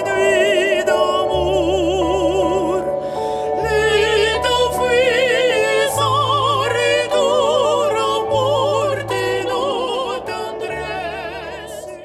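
Trailer score: an operatic voice singing long notes with a wide vibrato over sustained low bass notes that change every couple of seconds, fading out at the end.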